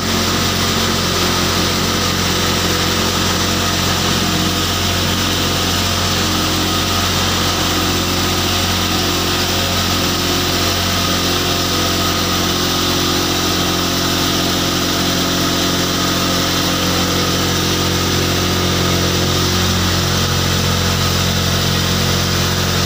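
Electric feed pulverizer plant running steadily: the motor-driven grinder and its blower fan give a loud, even hum and whir with several steady tones.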